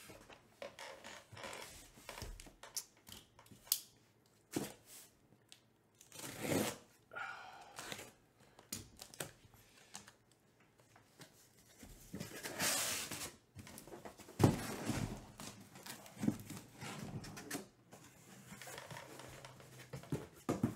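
A cardboard shipping case being opened and unpacked by hand: packing tape tearing with rasping swishes, cardboard rustling and scraping, and sealed boxes knocking as they are set down. One sharp knock about two-thirds of the way through is the loudest.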